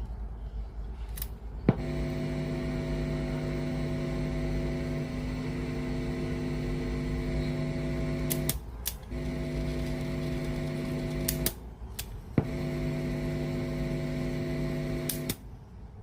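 Small motor in a Sharp GF560 radio-cassette boombox's tape mechanism, running with a steady hum. It is switched on and off with sharp mechanical clicks, stopping twice briefly and then stopping near the end.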